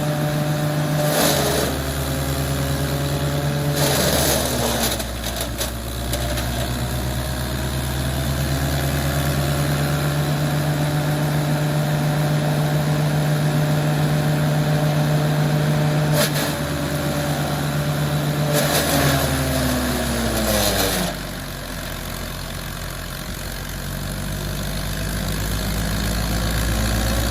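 Wood crusher machine running with a steady mechanical hum, broken by several short loud bursts as material goes through it. Its pitch sags after the bursts about 20 seconds in, and the machine is slowly picking up speed again near the end.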